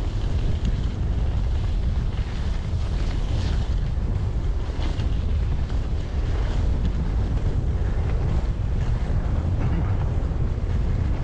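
Wind buffeting the camera microphone as it moves along a snowy forest track, a steady low rumble with faint, irregular crunching or scraping mixed in.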